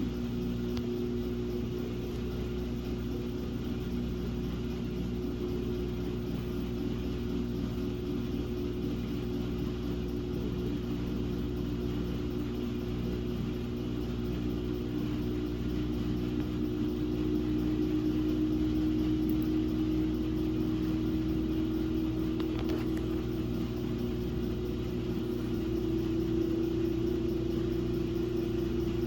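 Samsung WA50R5200AW top-load washing machine spinning its drum with a single pair of pants, a very imbalanced load: a steady motor hum whose pitch creeps slowly upward, growing a little louder a bit past halfway.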